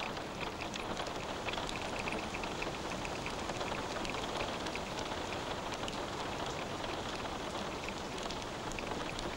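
Water falling and spattering steadily: an even hiss of many small drops.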